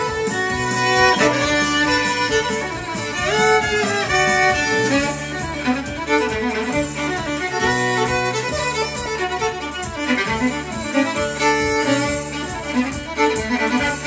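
Fiddle played live: a bowed melody with a sliding note about three and a half seconds in, over a steady low accompaniment.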